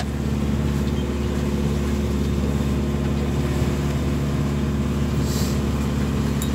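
A sailboat's inboard diesel engine running steadily under way: an even, unchanging low drone. A brief hiss comes about five seconds in.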